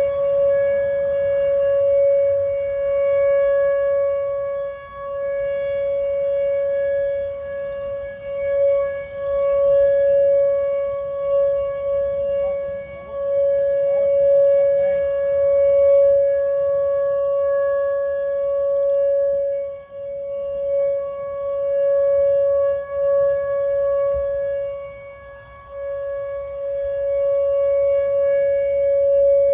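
Outdoor tornado warning siren sounding one steady, unchanging tone that swells and fades in loudness over and over.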